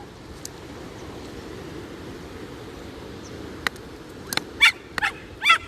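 A dog giving a quick series of short, high yelps and barks in the second half, over the steady rushing of a river.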